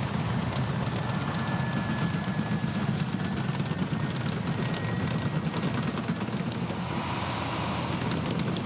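Caterpillar crawler bulldozer pushing soil, its diesel engine running steadily under load with a low rumble and a faint high whine over it.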